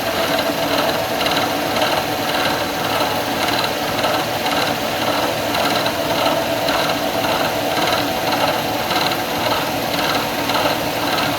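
Bridgeport milling machine running with its cutter taking a steady cut along a Delrin (acetal) bar as the table moves under power feed.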